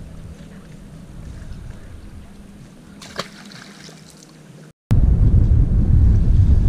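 A low, steady hum with a small click about three seconds in, then, after a sudden cut, loud wind buffeting the microphone over the rumble of a bass boat running fast across the water.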